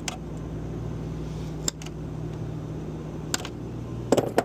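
Steady low mechanical hum under occasional sharp clicks from hand work on the air-conditioner's parts, with a quick cluster of knocks near the end.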